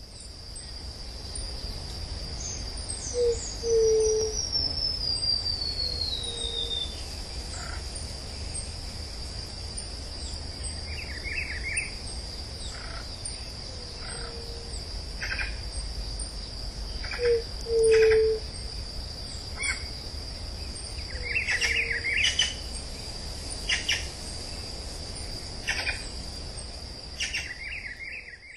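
Forest bird and insect chorus: a steady high insect buzz throughout, a long whistle falling slowly in pitch a few seconds in, and low two-part hoots, loudest about four seconds in and again around the middle. Scattered short chirps and calls sound between them.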